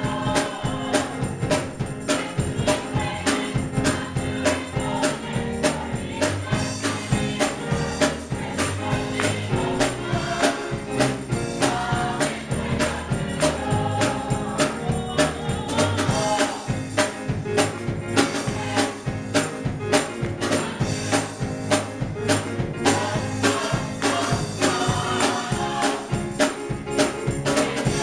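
Gospel choir singing praise music with a band, percussion keeping a steady beat over a bass line.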